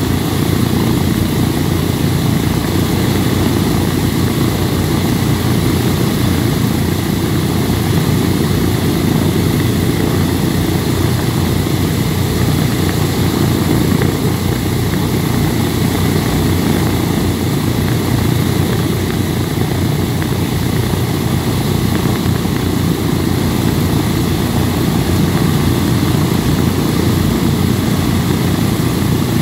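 Boeing B-17 Flying Fortress with all four Wright R-1820 Cyclone nine-cylinder radial engines running together at a steady idle while the bomber stands still.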